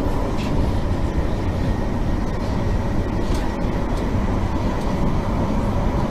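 Train running: a loud, steady rumble of rail travel with no clear rhythm or breaks.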